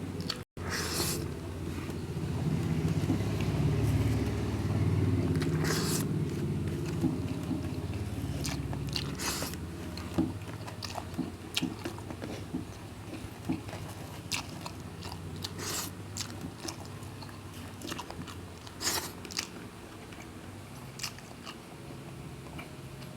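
A person biting and chewing food, heaviest in the first six seconds, then lighter chewing broken by sharp crunches and clicks.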